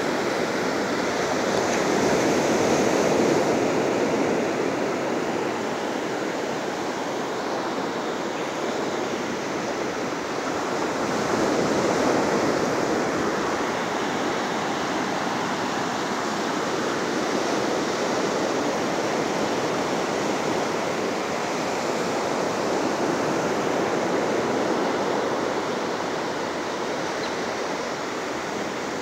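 Steady rush of ocean surf breaking on the beach, swelling and easing every several seconds, with some wind.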